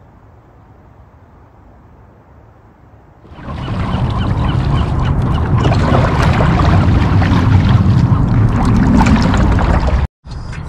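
Faint wind and ambient noise, then from about three seconds in a loud rush of wind on the microphone and water splashing as a sprint canoe is paddled hard with a single-blade paddle, the sound cutting out briefly near the end.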